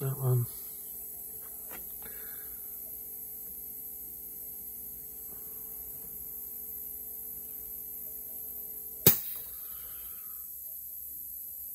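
Steady electrical hum, with one sharp click or tap about nine seconds in.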